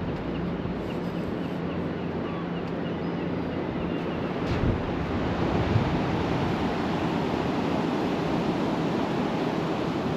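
Sea waves washing onto a sandy beach, a steady surf noise that grows a little louder about halfway through, with wind buffeting the microphone.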